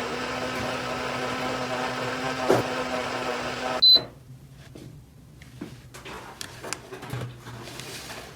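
A toy kitchen appliance hums steadily and cuts off about four seconds in with one short, high beep, like a cooking cycle finishing. After that come light, scattered clicks of small plastic pieces being handled.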